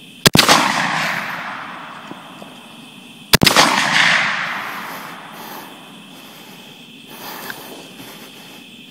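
Two rifle shots from a 300 AAC Blackout about three seconds apart, each followed by a long rolling echo that fades over a couple of seconds; a hog is shot and killed.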